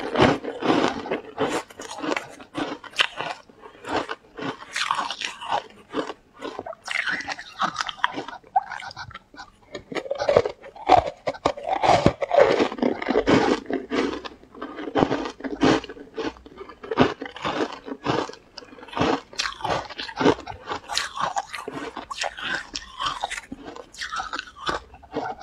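Close-miked crunching and chewing of food, a dense run of crackly bites and crunches throughout.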